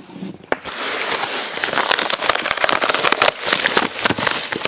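A padded paper bubble mailer being torn open by hand: a continuous crackling rip of paper and plastic bubble lining, starting just under a second in.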